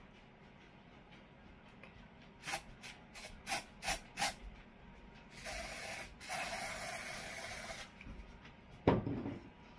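Aerosol can of dark brown Batiste dry shampoo spraying onto hair: about five quick short spritzes, then a longer hiss of about two seconds with a short break. A single sharp thump near the end, the loudest sound.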